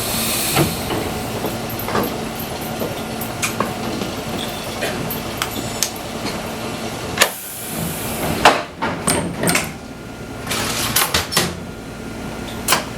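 Fukui Railway 200 series electric railcar, heard from inside: a steady low hum with scattered clicks and knocks, the sharpest about 7 and 8.5 seconds in, after a hiss of air fades in the first half-second.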